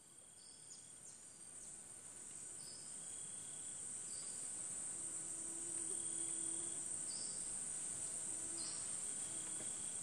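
Rainforest insect chorus fading in over the first few seconds: a steady high-pitched drone, with a few short high chirps scattered through it.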